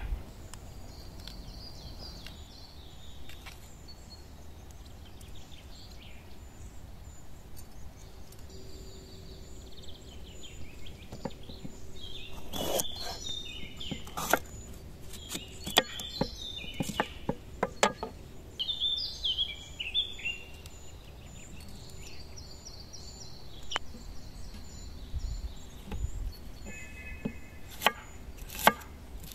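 Kitchen knife slicing green bell peppers on a wooden cutting board, with scattered sharp knocks of the blade on the board, several near the end. Songbirds chirp in short falling phrases through the middle, over a steady low outdoor background.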